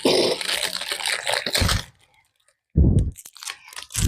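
Plastic and cardboard packaging crinkling, crackling and tearing as a snack pack is opened by hand. It stops for under a second about two seconds in, then starts again with a loud low knock.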